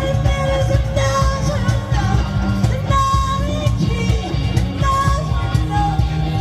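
Live band playing a rock-style song with a lead vocalist singing long held notes over a heavy, pulsing bass and drums.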